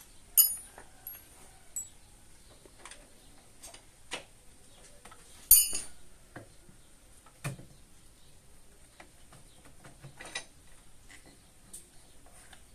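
Scattered metallic clinks and taps of hand tools and engine parts being handled during motorcycle engine disassembly, with two louder ringing clinks about half a second and five and a half seconds in.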